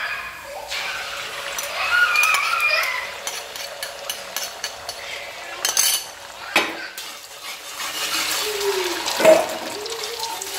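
A kitchen utensil stirring and clinking against a pot or bowl, with scattered sharp clicks over a steady hiss.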